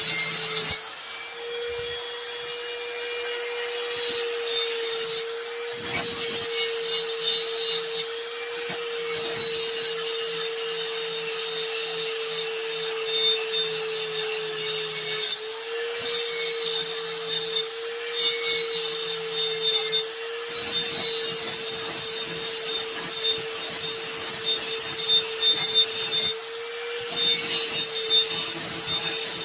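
Electric grinder running steadily with a constant whine while it grinds the steel cutting edge of a lawn mower blade, the rough grinding noise swelling and easing in passes of a few seconds as the edge is sharpened.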